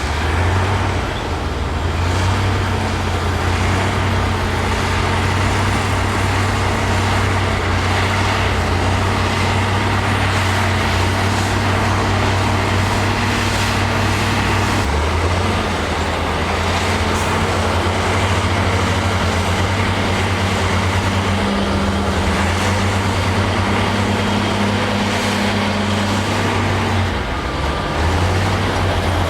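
Heavy diesel engine of earthmoving machinery working steadily, its pitch shifting down and up a few times as the load or throttle changes, over a continuous rough mechanical noise.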